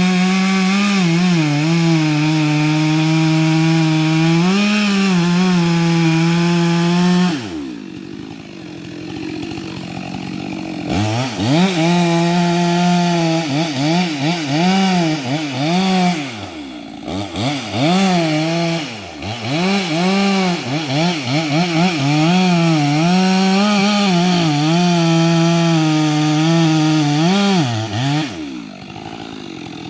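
Chainsaw cutting into a large tree trunk, working the felling notch. It runs at high revs, drops to idle about seven seconds in, then revs up again and swings up and down repeatedly before dropping back to idle near the end.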